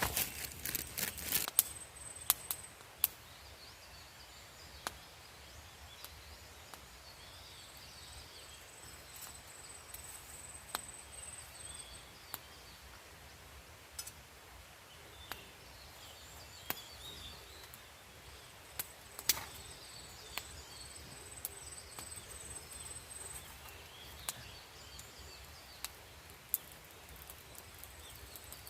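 Wood campfire crackling, with sharp pops every second or two and a quick run of them at the start. Birds call faintly in the background, with a thin high trill that comes and goes.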